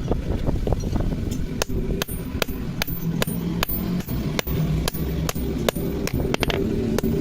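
A hammer striking metal in steady, even blows, about two and a half a second, as in blacksmith forging. A low steady hum runs underneath.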